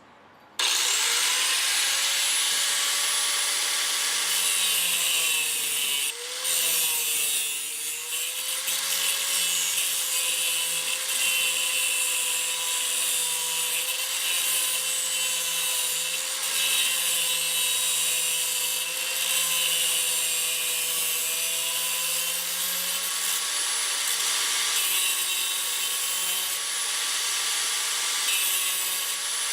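Cheap electric cutoff tool with an abrasive wheel starts up about half a second in and grinds steadily through the steel can of an oil filter: a constant motor whine under a harsh grinding hiss. The whine sags briefly about six seconds in as the wheel bites.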